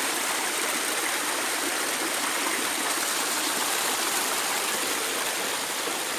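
Small waterfall pouring onto rocks close by: a steady rush of falling and splashing water, hissy rather than deep.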